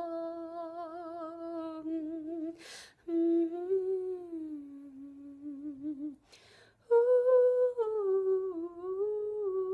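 A woman humming a slow wordless melody, unaccompanied, in three long held phrases with a wavering vibrato. She takes a quick breath between phrases, about two and a half and six seconds in.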